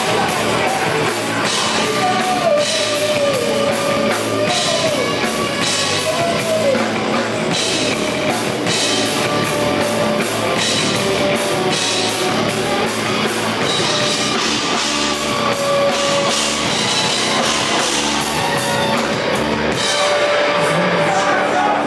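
Heavy rock band playing live: distorted electric guitars over a drum kit with regular cymbal hits, loud and steady throughout.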